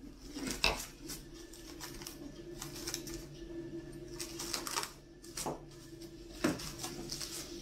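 Plastic cling film crinkling and crackling as it is pulled from the roll and pressed around the rim of a glass baking dish, in irregular crackles and clicks with a couple of louder snaps, over a faint steady hum.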